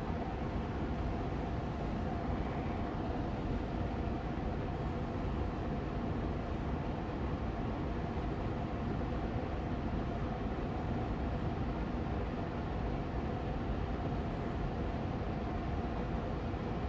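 Austin Air Allergy Machine air purifier fan running steadily on medium speed: an even rush of air with a faint hum underneath.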